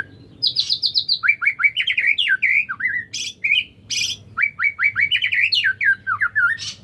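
White-rumped shama (murai batu) singing: quick runs of rapidly repeated whistled notes that slide up and down, in several phrases, with two short harsh notes in the middle.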